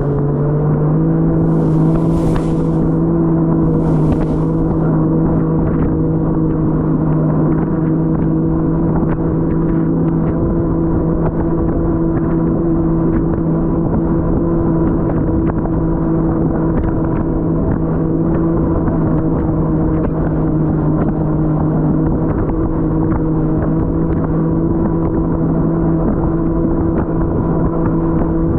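Jet ski engine running at a steady speed, its pitch holding level throughout. There are two brief hisses about two and four seconds in.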